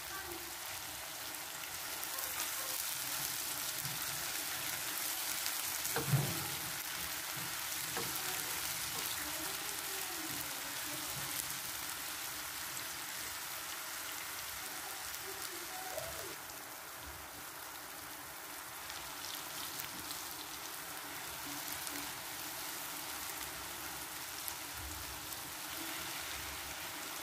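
Diced apples in butter and sugar sizzling in a nonstick frying pan on high heat as they caramelise, stirred with a silicone spatula. There is one sharp knock about six seconds in and a fainter one later.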